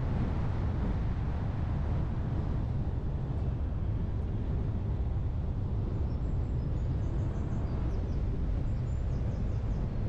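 Car driving slowly, its steady low road and engine rumble heard from inside the cabin. Faint high chirps come in over it from about six seconds in.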